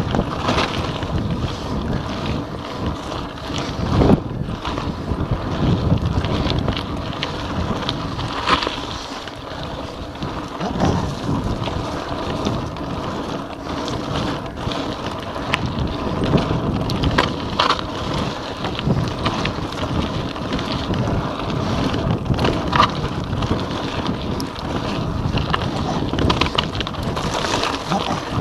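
Wind rushing over the microphone and tyres running over a rough dirt and gravel trail at speed, with frequent short knocks and rattles from a Giant Anthem 2 27.5 cross-country mountain bike.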